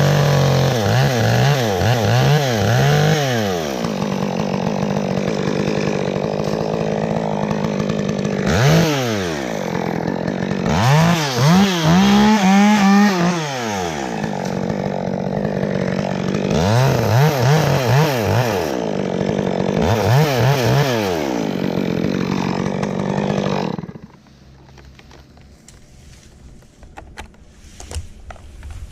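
Gas chainsaw running, its engine revved up and back down in about five throttle bursts between steadier running. It shuts off about 24 seconds in.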